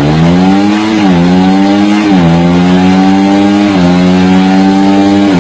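Yamaha sport motorcycle engine running at high revs near top speed. Its pitch climbs over the first second, then holds high and nearly steady, with a few brief dips.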